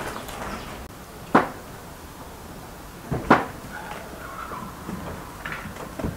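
A few sharp knocks on a hard surface: one about a second in, a quick double knock near the middle, and another near the end.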